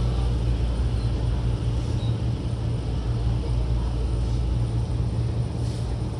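Steady low hum inside a Tokyo Metro 08 series commuter train car standing at a station platform.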